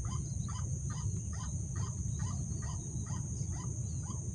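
Rapid, evenly repeated calls of the white-breasted waterhen (ruak-ruak), about four notes a second, used here to lure the bird in.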